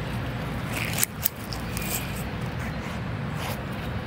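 Low, steady rumble of microphone handling noise from a handheld phone, with two sharp clicks about a second in.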